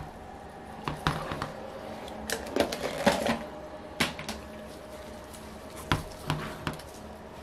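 Clicks and knocks of a small metal model engine, an OS FF-240 Pegasus crankcase with its cylinders, being handled, turned around and set back down on the bench mat by gloved hands. The knocks come irregularly, with a denser cluster about three seconds in.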